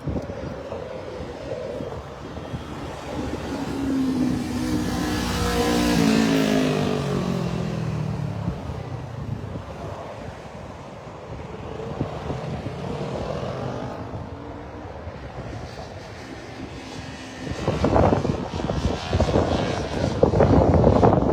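A motorcycle passing by on an interstate entrance ramp, its engine note loudest about six seconds in and falling in pitch as it goes away. Near the end, gusty wind buffets the microphone.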